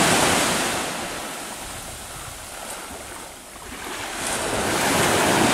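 Waves breaking and washing on the beach: loud at first, ebbing to a low point after about three and a half seconds, then swelling again as the next wave comes in.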